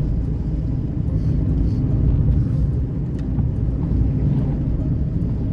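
Car interior noise while driving on a wet road: a steady low rumble of engine and tyres heard from inside the cabin.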